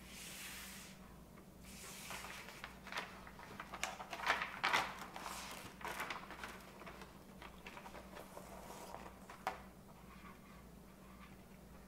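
A vinyl LP being slid by hand out of a thin plastic inner sleeve: rustling and crinkling of the sleeve with light taps, loudest around the middle. A brief swish comes at the start, and a single sharp tap near the end as the record is set on the table. A faint steady hum runs underneath.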